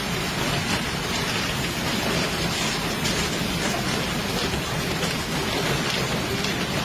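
Heavy thunderstorm rain pouring down, a dense steady hiss of falling water.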